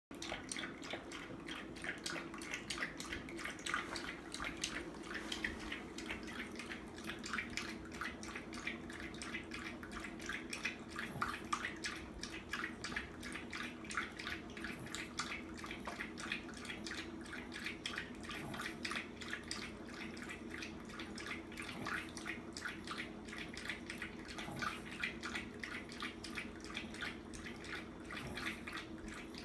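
French bulldog lapping water from a metal bowl in a quick, unbroken run of wet laps, drinking greedily without a pause.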